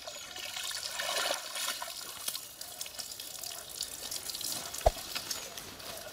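Water splashing and streaming off a wet cast net as it is hauled up out of a stream, with a single sharp knock about five seconds in.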